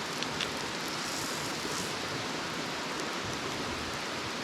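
Steady rushing of river water, an even hiss with no rhythm, with a couple of faint clicks in the first half-second.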